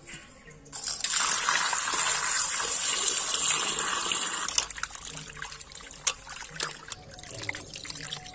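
Water poured in a steady stream into a steel basin of dressed quail, starting about a second in and lasting about four seconds. Then comes quieter splashing and dripping as the birds are washed by hand.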